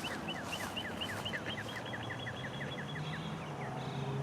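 A songbird singing a fast run of short, down-slurred whistled notes that speeds up and stops about three seconds in. A low steady hum, like a distant engine, comes in near the end.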